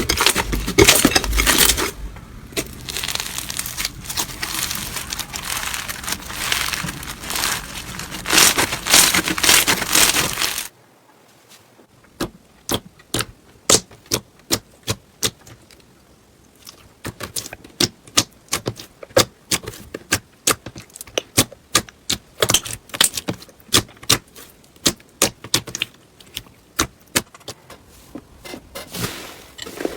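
Slime being squeezed and worked by hand: a dense run of crackling and clicking, then, after a cut about ten seconds in, a quieter stretch of separate sharp clicks and pops, several a second.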